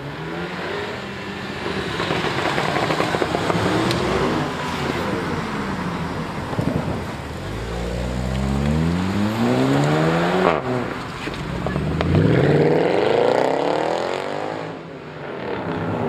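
High-performance car engines accelerating hard with loud exhausts. A little past halfway an engine's pitch climbs for a few seconds and drops sharply at a gear change, then it rises again near the end.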